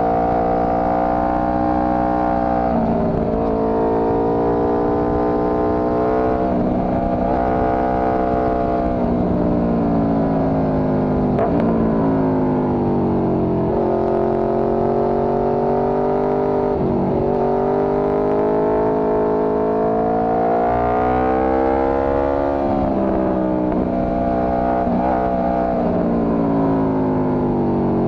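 Motorcycle engine pulling along a winding road, its pitch rising and falling over and over as the rider accelerates, shifts gears and rolls off, with wind rush underneath.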